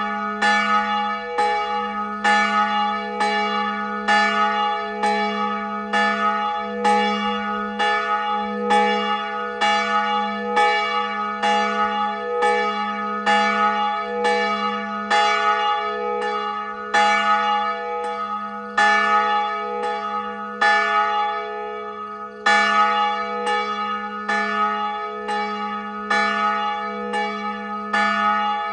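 Church bell tolling, struck over and over at about one stroke every 0.7 seconds, its low hum ringing on steadily between strokes.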